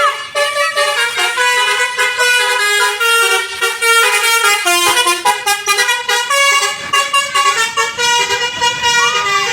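Basuri 'telolet' multi-tone bus horn playing a quick tune, several horn tones sounding together and stepping from note to note in rapid succession.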